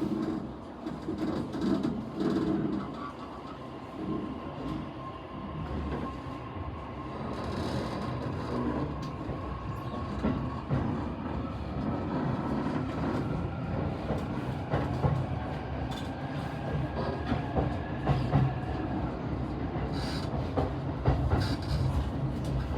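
E233-series electric commuter train running, heard from inside a passenger car: a steady running rumble with wheel clicks over rail joints. A motor whine climbs slowly in pitch through the middle of the stretch as the train picks up speed.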